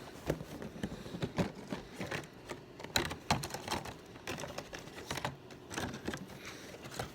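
A toy's cardboard box and packaging being handled and opened by hand: irregular clicks, taps and rustles.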